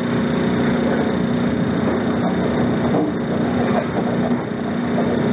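Steady background hum and hiss, loud and unbroken, with a low drone and a thin high whine running through it; no one speaks.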